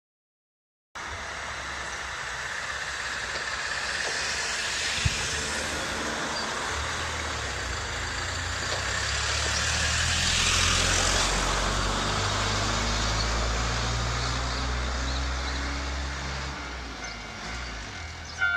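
Road traffic: motor-vehicle engine hum and tyre noise that builds to a peak around the middle and then fades away, with a single sharp click about five seconds in.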